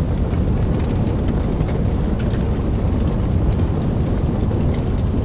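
Flames burning with a steady low rumble and many scattered small crackles.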